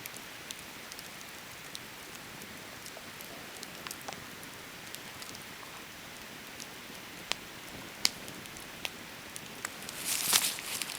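Wood campfire burning: a steady hiss with scattered sharp crackles and pops, and a louder rustling burst near the end.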